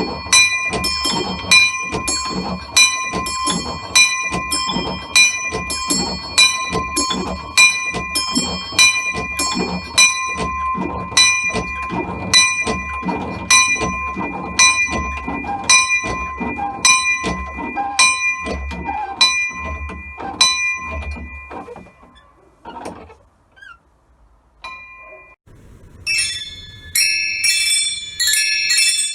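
Small bells of a miniature home bell tower chiming in a rapid scampanio, struck in a steady run of about two strokes a second; the bells are not quite in tune. The chiming stops a little past two-thirds of the way through, leaving a few knocks, and a brighter, higher-pitched peal of bells starts near the end.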